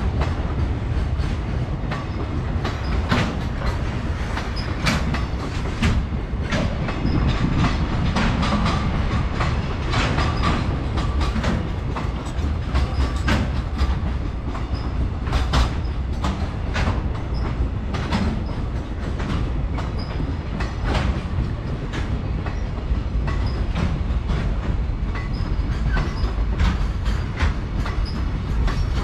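Container train of Koki flatcars rolling past with a steady low rumble and repeated sharp clacks as the wheels cross rail joints.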